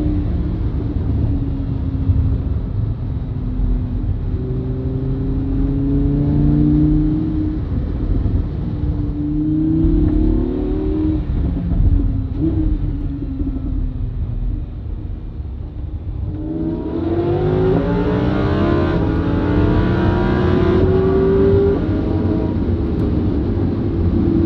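Sports car engine accelerating hard through the gears: its note rises and falls back several times, with the loudest, longest pull in the last third.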